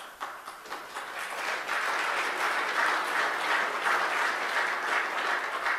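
Conference audience applauding: scattered claps at first that build within about a second and a half into steady, dense applause.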